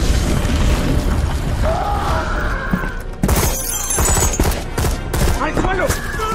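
Action-film soundtrack: a rumbling explosion, then glass shattering about three seconds in, followed by a string of sharp cracks and impacts with shouting voices and music underneath.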